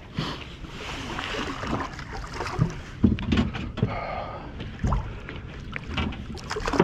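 Wind and water noise around a drifting fishing boat, with a few sharp knocks on the hull or rail.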